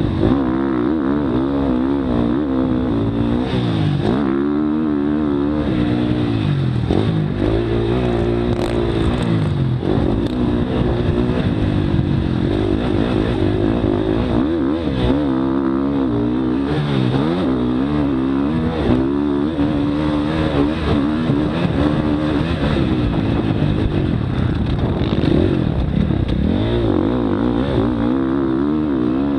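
Dirt bike engine heard close up while it is ridden hard round a motocross track, the revs constantly climbing and falling back through throttle changes and gear shifts.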